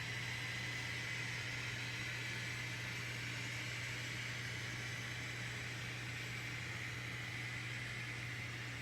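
Steady low hum and hiss of an N scale model train's sound-equipped diesel locomotives running, fading slightly toward the end.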